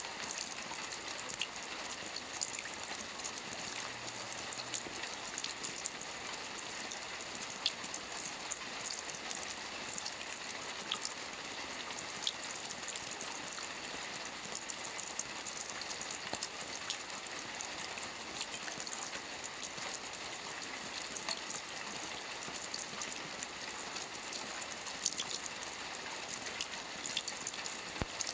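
Steady rain: an even hiss with scattered sharp patters of individual drops.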